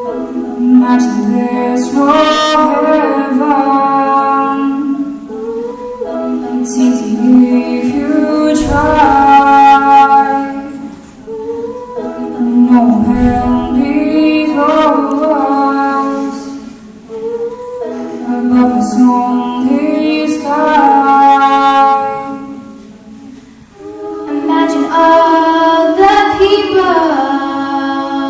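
Female vocal group singing a cappella in harmony, in long held phrases that swell and die away about every six seconds.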